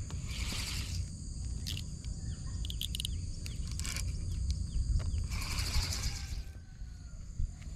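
Riverside ambience: a steady high drone of insects with a few bird chirps. Twice a short rattling burst comes from the spinning reel and rod being handled, with a few light clicks between.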